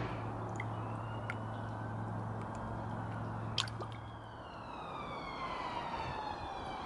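Steel Seal head gasket sealer being poured from its bottle into the radiator filler neck: liquid gurgling and dripping, with a tone that falls slowly through the second half as the bottle empties.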